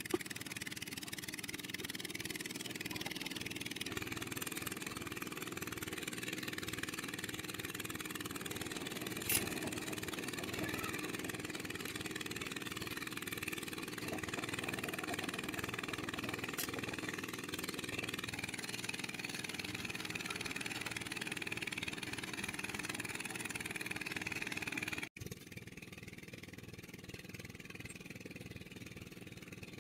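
An engine running steadily, with a sharp click about nine seconds in; the sound drops suddenly to a quieter background near the end.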